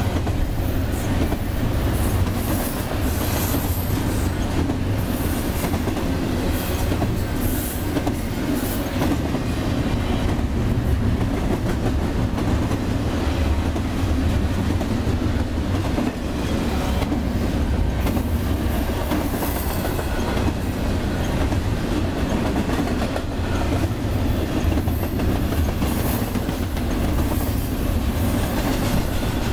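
Double-stack intermodal freight cars rolling past: a steady low rumble of steel wheels on rail, with clickety-clack and clatter from the wheels and cars.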